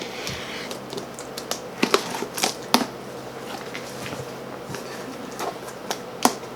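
A cardboard shipping box being opened by hand: irregular clicks, taps and snaps of cardboard and packing tape, with a few sharper snaps about two seconds in and again near the end.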